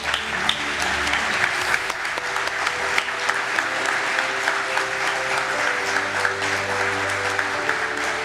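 Audience applauding, breaking out suddenly and holding steady, over instrumental music with sustained notes.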